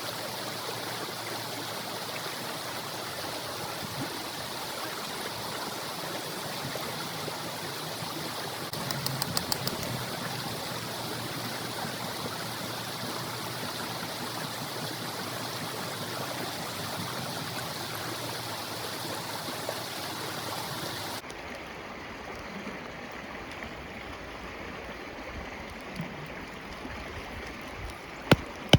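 Steady rush of a flowing stream. The sound changes abruptly and drops a little about two-thirds of the way through. A sharp click comes just before the end.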